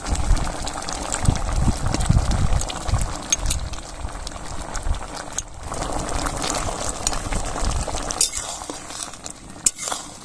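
Thick prawn and potato curry bubbling at a boil in a metal kadai, with a low rumble through the first few seconds. A metal spatula stirs it, clicking sharply against the pan a few times near the end.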